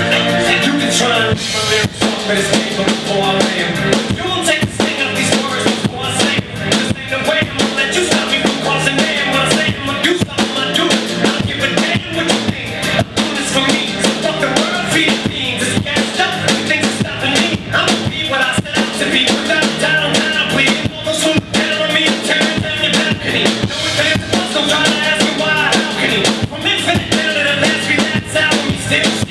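Acoustic drum kit played live in a steady hip-hop beat, snare and bass drum hits with cymbals, over a recorded backing track of the rap song.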